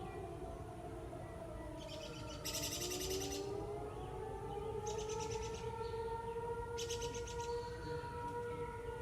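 Outdoor tornado warning sirens wailing, their pitch slowly rising and falling, with overlapping tones from more than one siren or horn. A songbird sings short, rapid trills over them several times.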